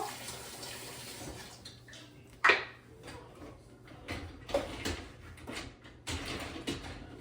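Dishes being set into a dishwasher's racks: scattered clinks and knocks of crockery against the rack, the loudest a sharp clack about two and a half seconds in.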